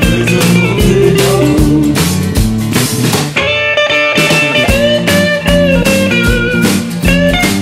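Background music: a rock-style song with guitar and a steady drum beat. The drums drop out for about a second near the middle.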